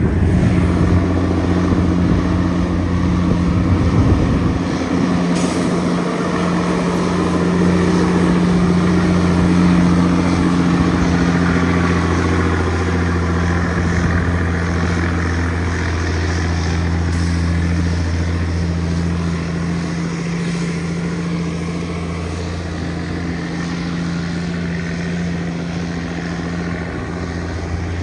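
Heavy diesel truck engine running under load as the loaded truck climbs a steep grade, a steady deep drone that eases slightly in the second half.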